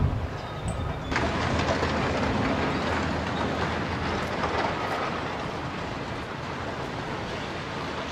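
Long belt conveyor for carrying soil running, its rollers giving a steady clattering rumble. A short repeating beep sounds in the first second.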